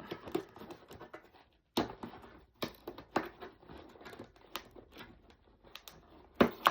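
Hair straightener packaging being handled and opened: irregular taps, clicks and rustling of cardboard and plastic, with a louder knock near the end.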